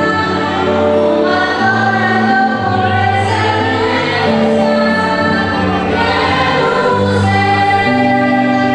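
Gospel song sung by a choir over instrumental accompaniment, with held notes and a steady bass line.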